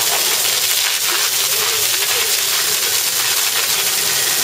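Jet of water from a hose spraying and splattering onto an Asian elephant's hide: a steady, loud hiss.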